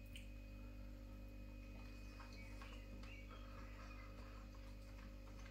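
Near silence: a steady low electrical hum with a few faint soft clicks of a man chewing a mouthful of food.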